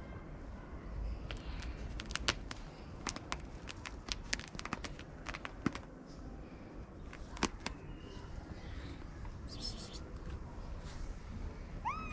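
Scattered sharp clicks and a brief rustle, then a kitten gives one short meow that rises and falls, near the end.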